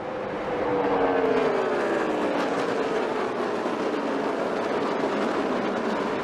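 NASCAR Cup stock car's V8 engine at racing speed, its note falling slowly and steadily in pitch as the car slows into a turn.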